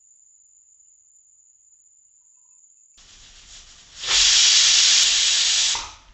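Stovetop pressure cooker venting steam through its weight valve: a loud hiss beginning about four seconds in, lasting nearly two seconds and then cutting off. It is the release that signals the cooker has come up to pressure.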